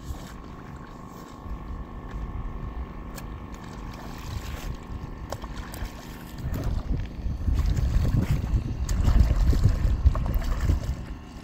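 Wind buffeting the microphone in an irregular low rumble that grows stronger in the last few seconds, with small splashes of water as hands stir the pond's surface.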